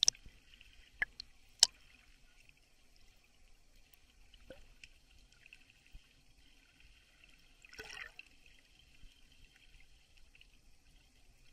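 Underwater sound picked up by a camera held just below the sea surface: a faint steady hiss with a few sharp clicks in the first two seconds, and a short bubbling rush of water about eight seconds in.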